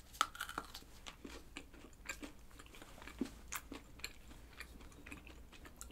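Biting into and chewing a small pistachio-filled chocolate with shreds of kadayif pastry: faint, irregular crunches and clicks of chewing heard close up.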